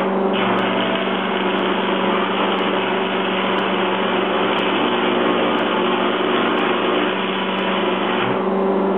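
Stick welder arc burning on the door frame: a steady crackling sizzle that starts just after the beginning and breaks off near the end, over a steady electrical hum.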